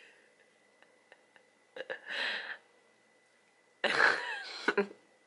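A baby's short, throaty vocal sounds made with a mouthful of orange: one about two seconds in and a louder one near four seconds.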